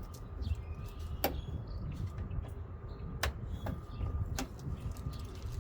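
A few sharp clicks and taps of metal and plastic parts being handled while a front-load washing machine is taken apart, over a low rumble of wind on the microphone.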